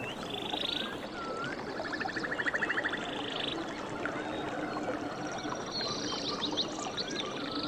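Running water with birds calling over it: short swooping whistled notes and several rapid buzzy trills, one about two seconds in and more near the end.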